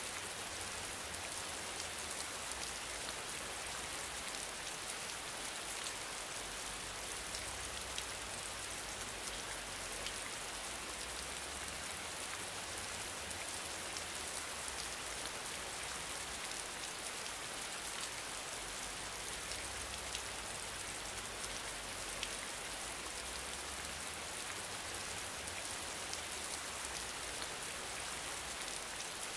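Steady rain sound: an even hiss with a fine patter of tiny ticks.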